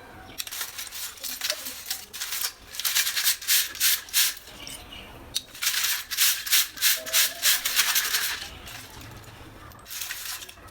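Roasted multani mitti (fuller's earth clay) being chewed, making crisp, brittle crunches in two rhythmic runs of about three to four bites a second, with a lighter crunch near the end.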